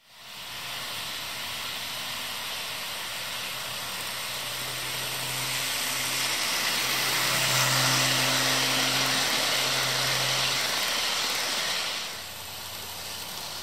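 HO-scale model passenger train running along the track: a steady rolling hiss with a low motor hum. It grows louder as the train comes close, peaking about eight seconds in, and drops quieter about twelve seconds in.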